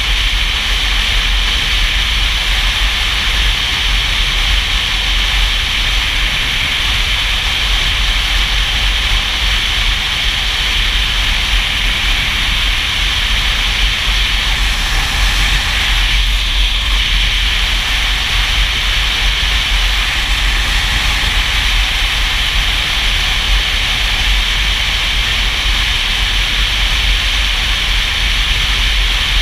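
Steady wind rushing over the microphone of a camera on a motorcycle riding at highway speed, with a deep low rumble of buffeting underneath.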